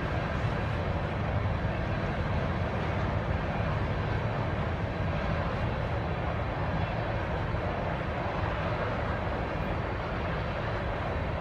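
Freight train running past unseen, a steady low rumble and hum with an even wash of rolling noise above it.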